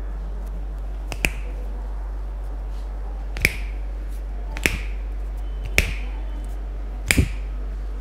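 Finger knuckles cracking as a masseuse pulls the fingers one at a time: five sharp pops a second or so apart, the last one doubled. A steady low hum runs underneath.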